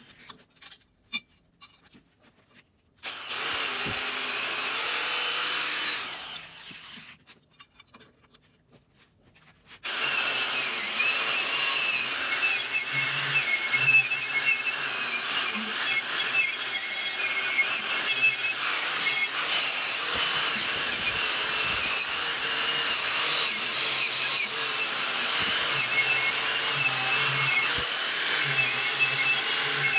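Corded handheld power tool spinning a small abrasive wheel against steel bearing flanges held in a bench vise, grinding and cleaning the metal. It runs in a short three-second burst, then, after a pause, grinds steadily for the rest of the time, its whine wavering in pitch as the pressure on the wheel changes.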